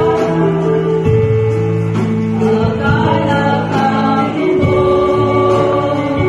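A small group singing a Tagalog worship song, with a woman leading into a microphone, over a steady instrumental accompaniment. The singers hold long notes.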